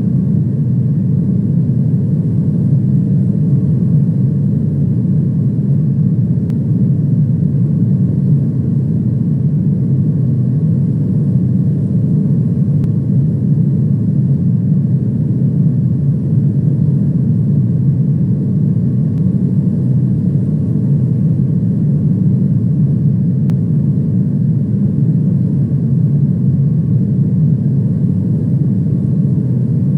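Airliner cabin noise: a steady, unchanging low rumble of engines and airflow heard from inside the passenger cabin.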